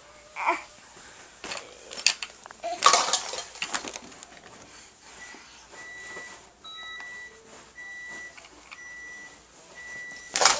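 Plastic toy dishes clattering and knocking, loudest about three seconds in. Then a toy phone gives short, even electronic beeps about once a second, each about half a second long.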